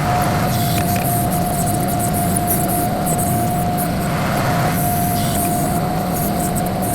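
TYM 2515H compact diesel tractor running steadily under work, with a low engine rumble and a steady high-pitched whine.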